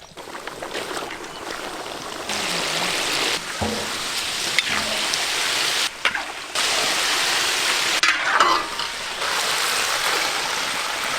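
Chicken deep-frying in hot oil: a steady, dense sizzle that jumps in level and character several times at abrupt changes.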